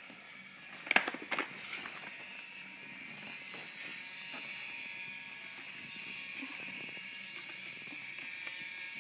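Battery-powered toy train's small electric motor whirring steadily as it runs around a plastic track, after a few sharp clicks about a second in.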